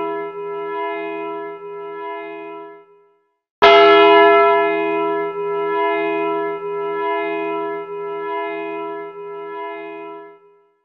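Background music: a slow, repeating phrase of sustained bell-like notes. It fades out about three seconds in, drops out briefly, comes back in abruptly and loudly, then fades out again near the end.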